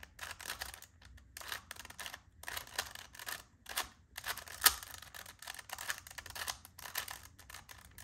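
3x3 Rubik's Cube being turned by hand, its plastic layers clicking and clacking as they rotate in a run of quick repeated moves, with one sharper click a little past halfway.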